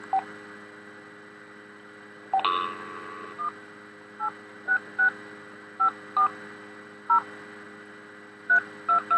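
Phone keypad tones as a number is dialed by hand: a string of short two-tone beeps at an uneven pace, the digits 1-866-540-322 of eBay's customer service line. A longer beep sounds about two and a half seconds in, before the run of digits.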